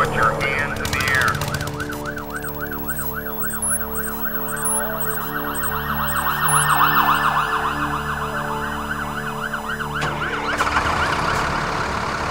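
Emergency vehicle siren in fast yelp mode, its pitch sweeping rapidly up and down about three to four times a second. The sound turns noisier and hazier near the end.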